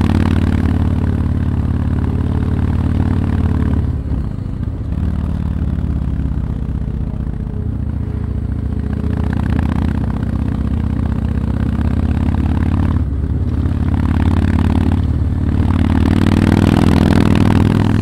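Yamaha MT-01's big V-twin engine running under way, a steady low note with a brief drop and change in pitch about four seconds in and two more later on.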